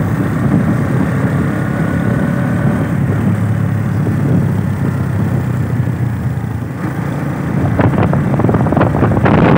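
Motorcycle engine running steadily at road speed, with wind on the microphone that turns into loud gusty buffeting over the last two or three seconds.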